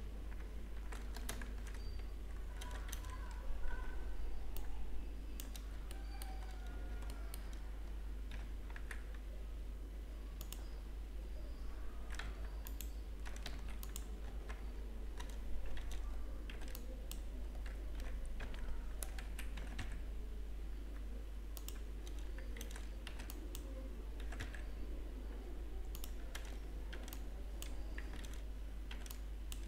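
Computer keyboard keys and mouse buttons clicking irregularly as shortcuts are pressed, over a steady low hum.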